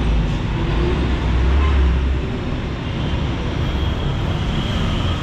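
Road traffic passing close by, with a vehicle's low rumble loudest in the first two seconds, then a steady traffic hum.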